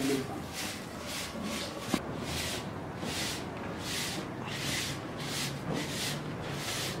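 Short hand broom sweeping dusty dirt ground in quick, even strokes, about two a second, each a brief scratchy swish.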